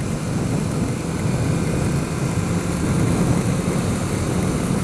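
2008 Kawasaki Ninja 650R's parallel-twin engine running steadily while riding, mixed with wind rush on the microphone.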